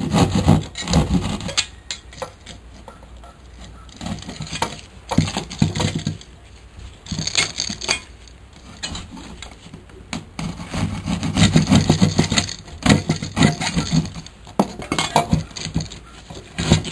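Irregular scraping, rubbing and knocking from an electrical box being notched and worked by hand at a drywall opening, in short bursts with pauses between them.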